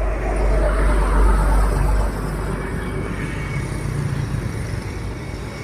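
Heavy road vehicle's engine with a deep rumble, loudest in the first two seconds and dropping away suddenly about two seconds in, then running on more steadily.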